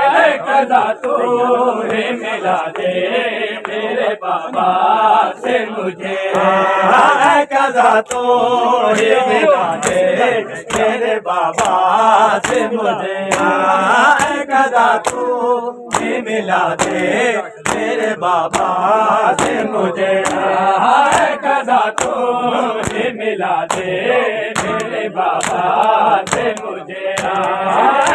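Group of men chanting a mourning lament in unison, with a steady rhythm of sharp slaps from hands striking bare chests (matam).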